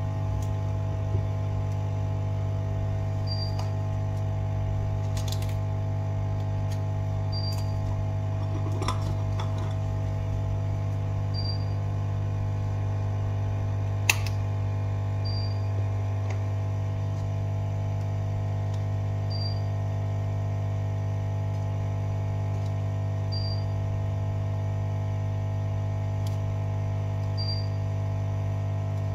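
Steady electrical mains hum with several overtones, and a faint short high beep about every four seconds. A few light clicks sound over it, the sharpest about halfway through.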